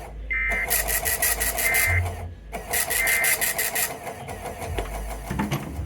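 Emergency Alert System end-of-message data tones: three short electronic bursts about a second and a half apart, marking the end of the severe thunderstorm warning, over a steady rapid ticking.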